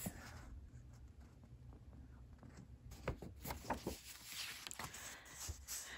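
Faint rustling and a few light taps of stiff printed paper cards being handled and laid down. It is almost silent for the first couple of seconds, and the handling noise comes in the second half.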